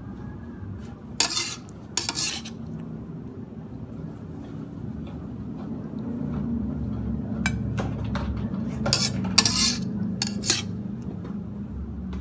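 Metal spatula scraping and clinking against a wok and a serving plate as a stir-fry of long beans and pork is scooped out and served. Short scrapes come about a second in, then a quick run of them from about seven to ten seconds.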